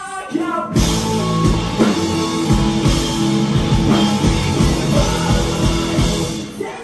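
Live rock band playing loud: after a brief sung passage, the full band with drum kit and electric guitars comes in hard about a second in and drives on, easing back to a lighter vocal-led part near the end.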